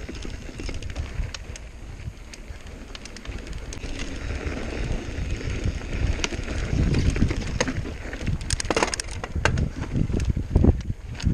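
Santa Cruz Nomad mountain bike riding down rocky singletrack, heard through a GoPro: wind rumbling on the microphone under the rattle and clatter of tyres, chain and frame over loose rock, with a burst of sharp knocks about nine seconds in.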